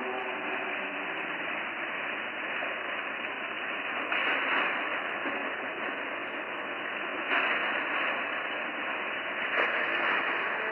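Steady static hiss with a muffled, cut-off top, surging louder suddenly three times, about 4, 7 and 9.5 seconds in, with a few faint steady tones near the start. It is a purported EVP recording (psicofonía) played back slowed down.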